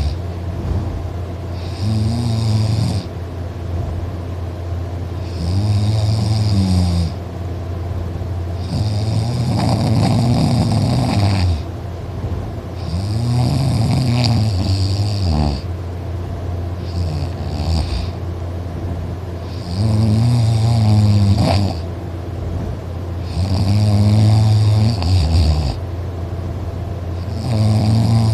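A man snoring loudly in his sleep, in regular rasping breaths about every four seconds, with one longer pause midway, over a steady low hum.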